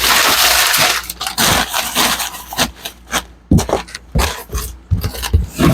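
Packing sounds: about a second of loud rustling, then scattered knocks, taps and scrapes as items are put into a cardboard shipping box.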